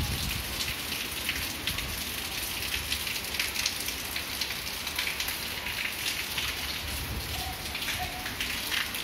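Heavy cyclone rain falling steadily on walls, roofs and ground: a dense, even hiss full of close drop patter.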